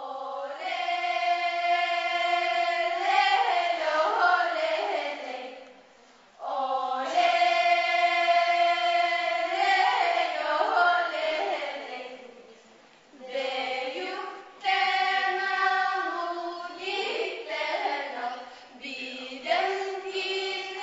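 A choir singing long held notes in slow phrases, with brief pauses between phrases about six and twelve seconds in.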